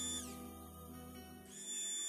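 Background music: held tones over a low bass note, with a high whistle-like sound that slides down in pitch twice.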